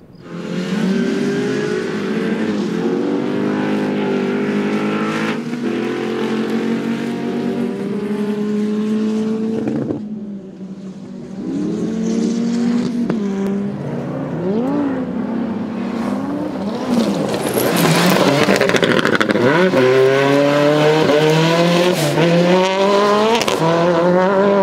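Autocross race car engines at full throttle, climbing in pitch and dropping back at each upshift, one car after another. About ten seconds in the sound dips and changes, then engines rise and fall in quick swoops, and the last several seconds are the loudest, with engines revving hard through the gears.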